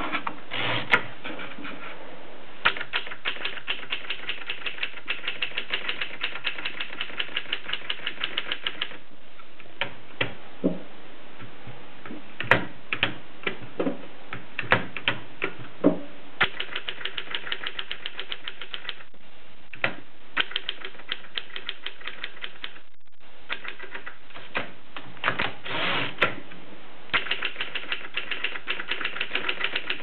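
Mercedes Prima typewriter being typed on: fast runs of key strikes clacking several to the second, broken by short pauses and a few louder single strokes.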